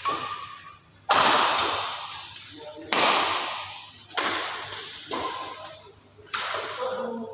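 Badminton rackets striking the shuttlecock in a rally: six sharp hits spaced about one to two seconds apart, each ringing on with a long echo in a large hall.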